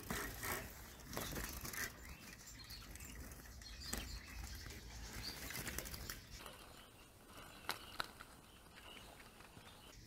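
A Eurasian siskin fluttering its wings inside a wooden-and-wire trap cage, with scattered light clicks and knocks.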